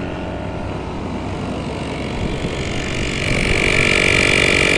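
Portable electric tire inflator running steadily while pumping up a van tire that was aired down to 25 psi. A high whine comes up about two seconds in and grows louder over the last couple of seconds.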